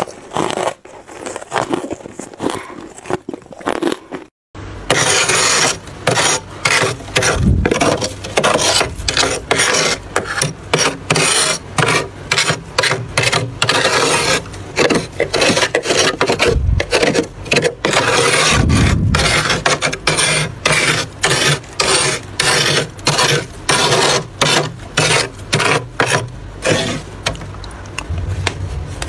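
Thick frost being scraped off the inside of a freezer in rapid repeated rasping strokes. In the first few seconds, before a cut, come quieter crunching bites of frost.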